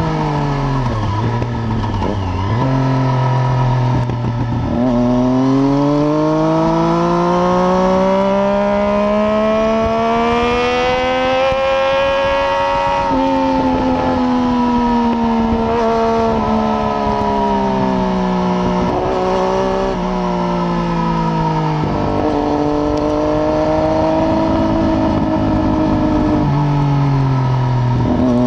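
Triumph Daytona 675's three-cylinder engine through a decatted, unbaffled Arrow exhaust, ridden hard on track. The engine note climbs and falls several times as the bike accelerates and slows through the gears, with quick drops in pitch on downshifts.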